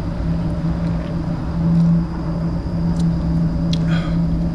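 A steady low mechanical hum holding one constant pitch over a rumble, like an engine idling, with a few light clicks near the end.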